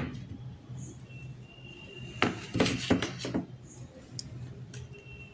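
A quick run of four or five clinks of a steel spoon against a stainless steel bowl about two seconds in, as cornflour is spooned onto grated potato, over a faint steady hum.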